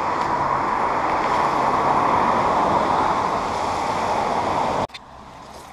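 Jeep SUV driving slowly on a wet road: a loud, steady hiss of tyres on wet pavement, which cuts off suddenly near the end, leaving a much quieter background.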